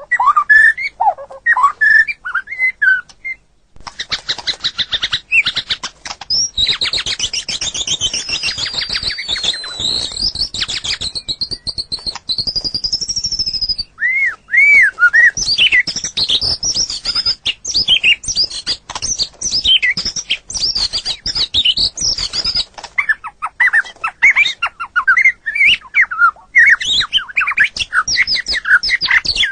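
White-rumped shama (murai batu) singing a loud, varied song: a few short whistled notes, then a long fast rattling chatter with high sliding whistles over it, then quick runs of looping, changing notes.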